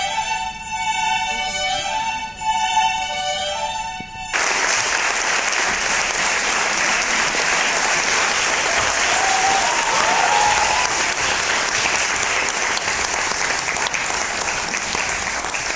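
Violin-led bowed string music playing a high melody for about four seconds, then cut off abruptly by an audience applauding steadily for the rest.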